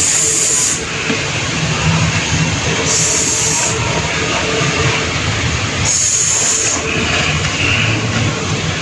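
A voice making a drawn-out hissing 'sh' phonic sound three times, about three seconds apart, over steady background noise.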